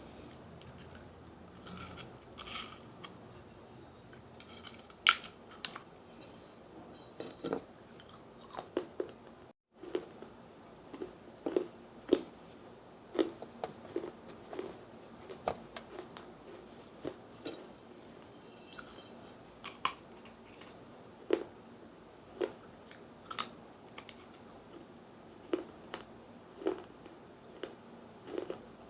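Crisp crunching as a small baked-clay diya is bitten and chewed, sharp irregular cracks about once a second, with a momentary gap in the sound near the middle.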